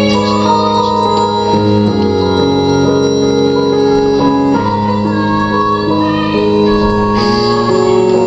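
Recorded show-tune music: the keyboard introduction, long held chords that change every second or so, before the vocal comes in.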